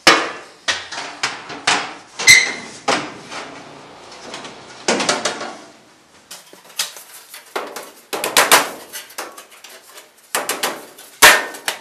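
Galvanized sheet-metal plenum panels clattering, scraping and banging as they are worked up into an S cleat on the ductwork: a quick, irregular run of knocks, with one ringing metal clang about two seconds in. The work is played in fast motion.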